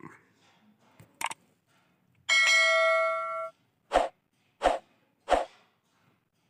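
Subscribe-button animation sound effects: a mouse click about a second in, then a ringing bell chime lasting about a second, then three short hits about two-thirds of a second apart.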